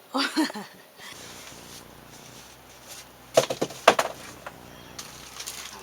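Packaging of a new air-conditioning unit being handled and opened: a few sharp knocks and clatters about three and a half seconds in, over a faint steady hum.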